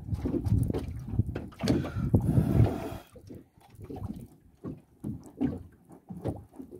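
Water sloshing and slapping against the hull of a small open fishing boat drifting at sea, in irregular surges that are loudest in the first three seconds, then softer scattered splashes and knocks.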